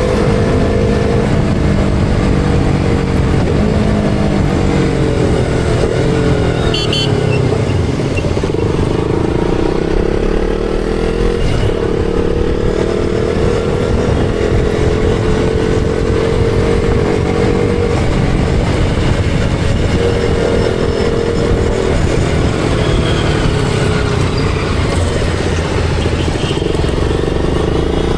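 KTM Duke 200's single-cylinder engine running on the move, its pitch dipping and climbing several times as the revs change.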